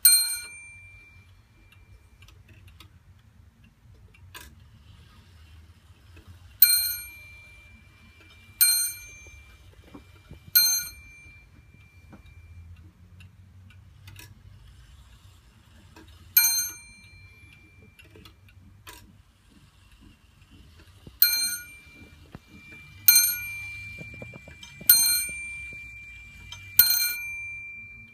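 Bell of a weight-driven Zaanse wall clock with a Hermle movement striking: once, then three strikes about two seconds apart, once more, then four strikes, each left to ring, with the movement ticking faintly between. The single strikes and hour counts fit the hands being turned forward through the half hours and hours.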